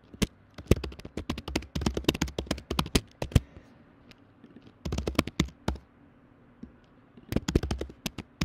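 Typing on a computer keyboard: rapid keystrokes in three runs, with short pauses between them.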